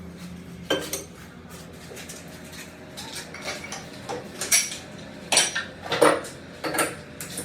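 Metal parts and tools being handled: irregular clinks and knocks of steel on steel, each sharp strike ringing briefly, coming thicker and louder in the second half. A low steady hum underneath drops away within the first second.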